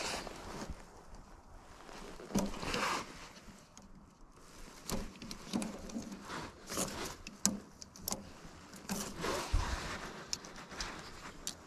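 Irregular clinks, knocks and rustling of hand work on machine parts and tools, with no engine running.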